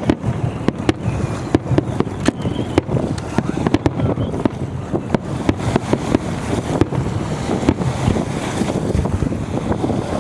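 Fireworks popping and crackling in a rapid, irregular series, under a heavy low rumble of strong wind buffeting the microphone.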